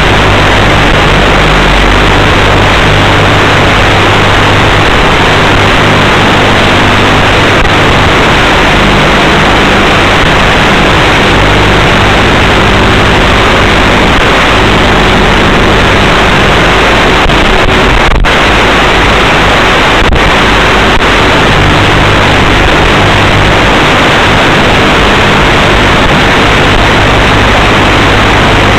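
Loud, steady static-like hiss with low droning tones underneath, the audio of an Eachine E013 micro quadcopter's onboard FPV camera and video link in flight, its small motors and propellers droning under the hiss. It drops out briefly twice after about eighteen seconds.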